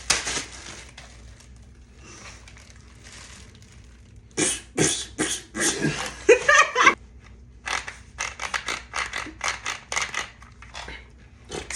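A person making mouth-sound imitations of objects. After a quiet stretch there is an irregular cluster of short noisy bursts, some with a brief pitched squeak, then a quick run of short breathy bursts at about three a second.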